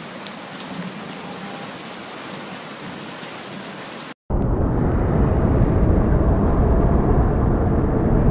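Heavy rain pouring, an even hiss with scattered drop ticks. About four seconds in it cuts abruptly to a louder, long, low thunder rumble, an edited-in thunder sound.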